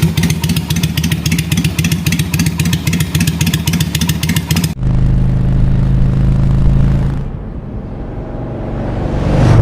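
V-twin motorcycle engine and exhaust running with an uneven pulsing beat, cutting abruptly about halfway to a steadier, higher engine note. That note drops away and then rises again as the throttle is opened near the end.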